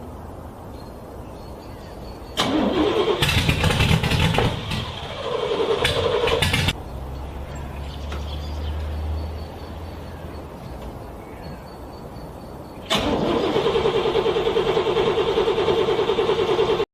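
A car's starter cranking a cold engine in two attempts, each about four seconds long, with a pause between them: the engine is struggling to start in freezing cold.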